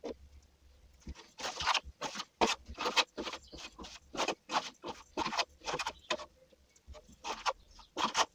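Plastering trowel spreading a thin first coat of Thistle Multi-Finish skim plaster on a wall: a run of short scraping strokes, two or three a second, with a lull near the start.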